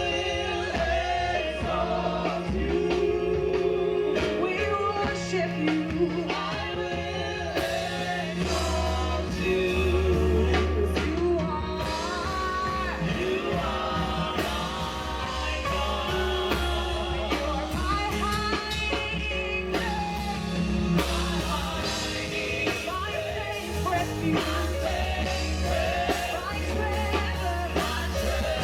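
Live gospel worship music: a praise team singing with a band of bass, drums and keyboard or guitar.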